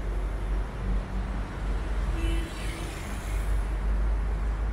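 Busy city street ambience: a steady low rumble of road traffic with a faint mix of distant noise above it.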